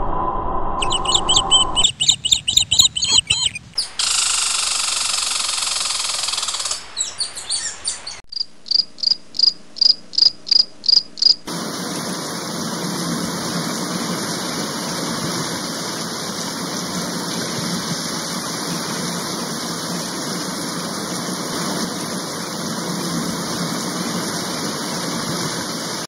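High insect chirping in short spliced segments, including a run of even chirps about three a second, then a steady, even rushing hiss for the second half.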